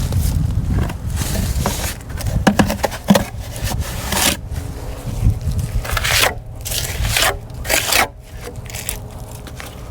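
Irregular scraping and rubbing strokes of a hand tool working the hydraulic cement patch on the concrete foundation, with a few sharper clicks among them.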